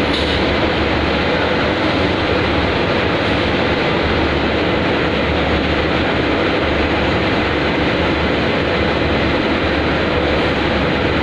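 Steady, dense mechanical noise of factory machinery around a robot palletizing line, running unbroken at an even level.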